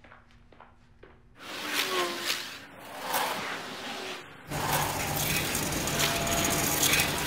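Industrial laundry machinery running: a loud mechanical clatter and rumble that begins about a second and a half in, changing about four and a half seconds in to a steady hum under the clatter.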